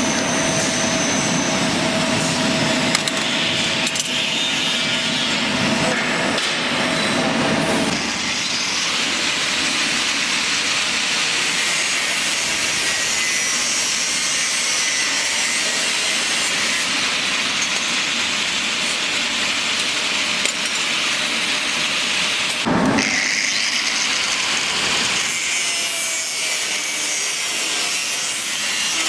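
A power tool cutting or grinding metal, running continuously with a steady whine that drops away about eight seconds in, leaving a harsh high hiss.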